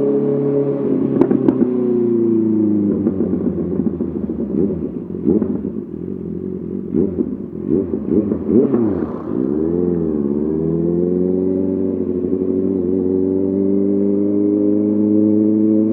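Honda CBR 650R inline-four through an SC-Project SC1R exhaust, heard while riding. The engine holds a steady note with two sharp clicks early on. From about three to nine seconds it turns choppy and uneven as the revs come off and are blipped. The note dips and picks up again around ten seconds, then settles into steady running.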